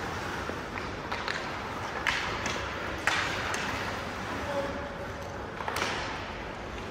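Ice hockey play on the rink: about five sharp clacks of sticks and puck spaced irregularly over steady rink noise.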